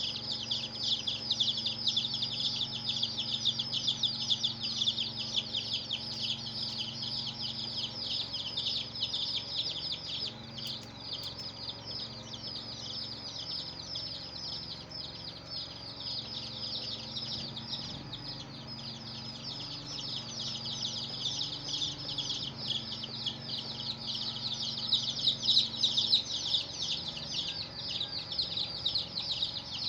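A brood of domestic chicken chicks peeping, many short high-pitched chirps overlapping without a break, with a quieter low steady hum underneath.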